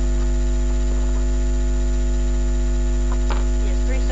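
Steady electrical mains hum with many overtones, constant in level throughout, with a few faint brief sounds about three seconds in.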